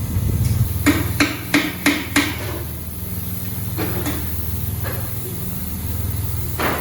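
Five quick, sharp hammer blows, about three a second, on a wheel as a tire is being broken off its rim, followed by a few lighter knocks. A steady low machine hum runs underneath.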